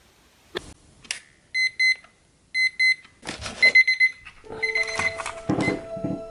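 Small alarm clock beeping in quick groups of rapid, high beeps, starting about a second and a half in and stopping about four seconds in. Knocks and thumps follow.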